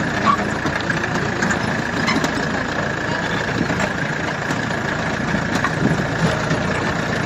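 Jeep engine running steadily as the jeep drives along a rough dirt track, heard from inside the open vehicle, with scattered small knocks and rattles.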